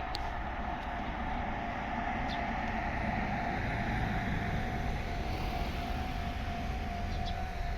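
Japanese railway level-crossing alarm ringing steadily, with the low rumble of an approaching train growing from about three seconds in.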